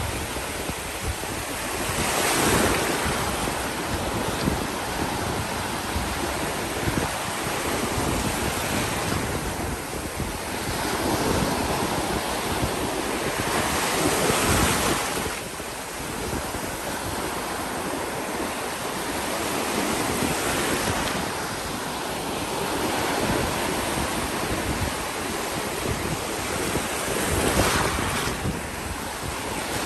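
Ocean surf breaking on a beach, a steady wash of waves that swells as larger waves crash every several seconds, with wind rumbling on the microphone.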